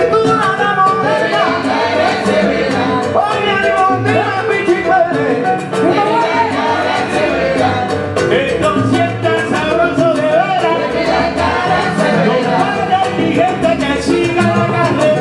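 Live salsa band playing at full volume, with several singers' voices over the band.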